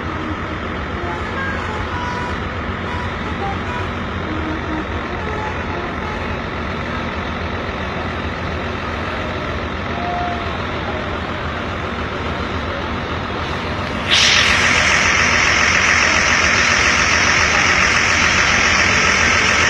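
Roadside traffic noise: a steady rumble of passing trucks and buses, with no horn sounding. About fourteen seconds in it cuts suddenly to a louder, steady hiss.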